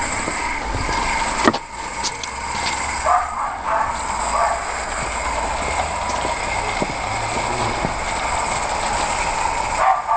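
A 16mm-scale live-steam garden railway locomotive running with its train, giving a steady hiss of steam, with a single sharp knock about a second and a half in.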